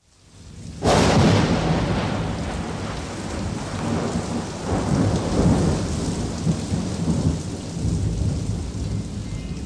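Thunderstorm sound effect: a sharp clap of thunder about a second in, then rolling thunder that swells and fades twice over steady heavy rain.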